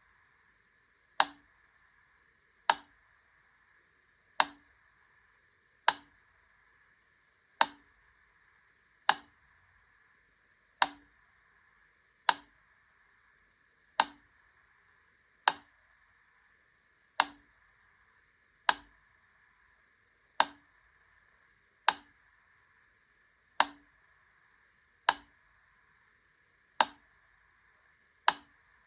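Wittner Taktell Piccolo clockwork metronome ticking slowly and evenly, a sharp click about every second and a half, the gaps alternating slightly long and short, over a faint steady hiss.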